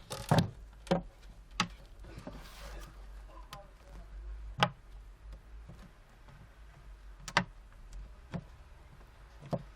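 Scattered sharp clicks and taps from handling an opened tablet and small tools, about seven at irregular intervals, over a low steady hum.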